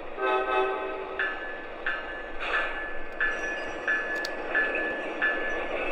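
Sound system of an MTH O-scale model locomotive giving a short horn blast, then ringing its bell at an even pace, about seven strokes, over a steady running rumble.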